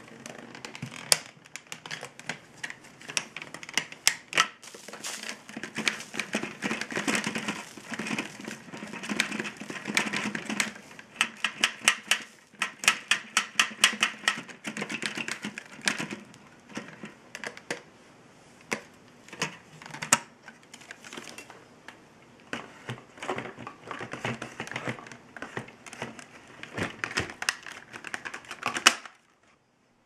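Clear plastic dust bin of a Dyson DC65 upright vacuum being emptied by hand: rapid plastic clicking, tapping and rattling as dirt and hair are shaken out of it. A single loud click near the end as the bin goes back onto the machine.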